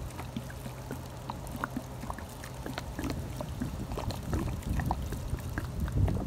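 Soda fizzing and trickling as it is poured from a plastic soda bottle after its Mentos reaction, a scatter of small crackling ticks, over a low rumble of wind on the microphone.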